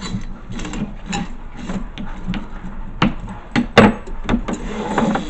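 A new flexible spray hose being handled and fed back through its fittings. It makes irregular rubbing and scraping with many light knocks, and a couple of sharper clicks about three to four seconds in.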